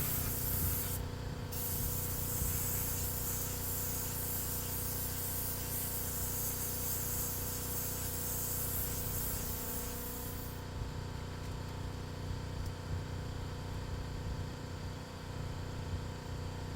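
Air spray gun spraying clear coat onto a car bumper, a steady hiss. It breaks off briefly about a second in and stops after about ten seconds, leaving a steady low hum.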